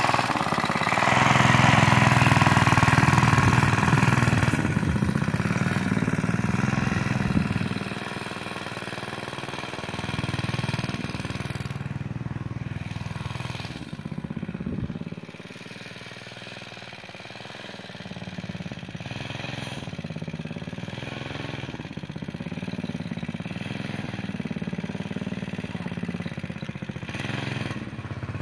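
A 5 hp mini bike's small single-cylinder engine running as it is ridden around. It is loudest in the first several seconds as it passes close, then fades, is faintest around the middle as it moves off, and grows louder again near the end.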